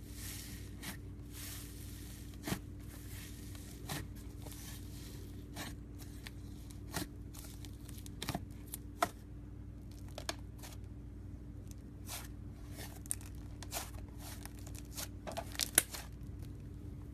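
Slime being squeezed and poked by hand, giving irregular sharp pops and crackles, with a denser run of pops near the end, over a steady low hum.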